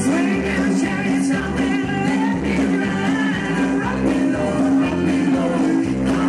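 Upbeat country-style song with a singer over a steady beat and bass line.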